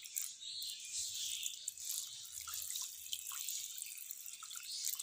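Water poured in a steady stream from a jug into a metal pot of liquid, splashing with small plinking drops.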